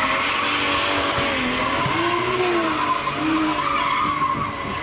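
A Nissan S14 drift car sliding through a bend, its engine revving up and down while the rear tyres squeal steadily.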